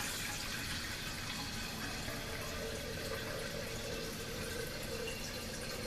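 Tap water running steadily into a glass coffee-maker carafe as it is rinsed out with clean water, to clear the vinegar from it.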